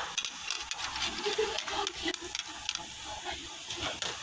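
Blanched leafy greens lifted from a pot of hot water in a wire-mesh strainer and tipped onto a plate: water splashing and dripping, with many light clicks and clatters of the strainer and plate.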